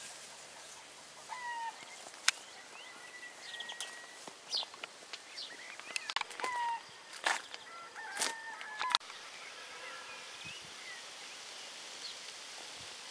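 Birds calling: short chirps and sliding whistled notes, broken by a few sharp clicks. About two-thirds of the way through the calls thin out and a steady rush of wind through leaves takes over.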